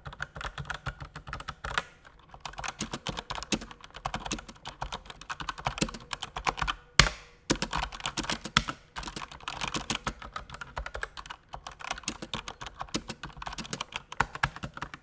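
Razer BlackWidow V3 mechanical keyboard being typed on: rapid, irregular key clicks and keycap strikes, with one louder key strike about seven seconds in.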